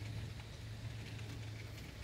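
Rain falling steadily, with fine pattering ticks, over a low rumble that eases off near the end.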